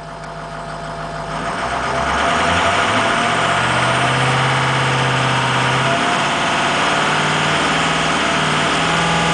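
Ford Excursion's V8 turbodiesel revved up from idle over about two seconds, then held steady at about 2,500 rpm with the turbocharger spooled. The owner takes the turbocharger's sound for a fault.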